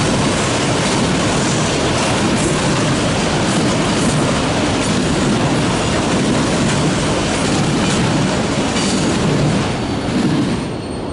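Freight train of autorack cars rolling past: a steady rumble of steel wheels on rail, with wheels clacking over rail joints. The noise falls off sharply near the end as the last car passes.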